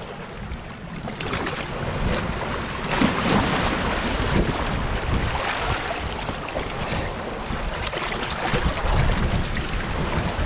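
Fast river water rushing and lapping against a rocky shore, with wind buffeting the microphone. A fish splashes as it thrashes in a landing net at the water's edge.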